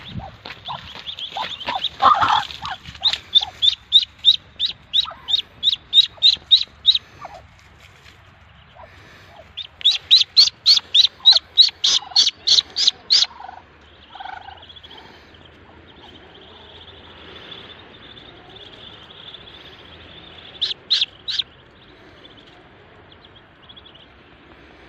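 Muscovy duckling peeping loudly in rapid runs of about three or four high peeps a second, twice, with three more peeps near the end.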